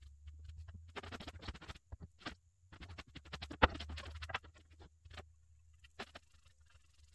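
Wooden boards being handled on a plywood workbench: bursts of rustling and scraping, with one sharp knock about three and a half seconds in as a board is set down. A few short brush scrapes follow near the end, over a low steady hum.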